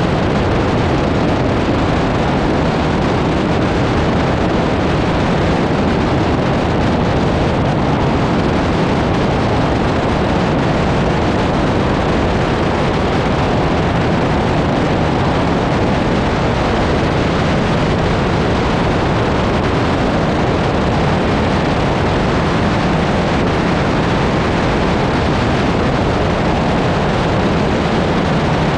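Steady rush of wind over the wing-mounted microphone of a Cessna 140A in flight, with the drone of the light plane's engine and propeller underneath, unchanging throughout.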